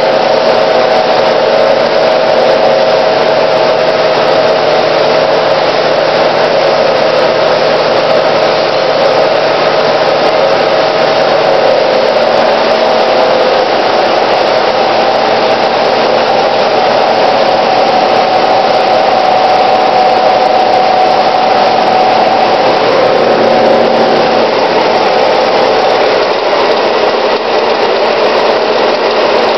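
Froth flotation cells running, their motor-driven impellers agitating the slurry: a loud, steady machine drone with a constant whine whose pitch shifts slightly as the camera moves between cells.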